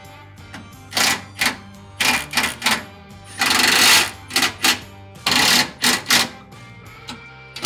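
Cordless impact driver hammering in a series of short bursts, with one longer run about three and a half seconds in, as it runs the skid plate's mounting nuts up tight. Background music plays underneath.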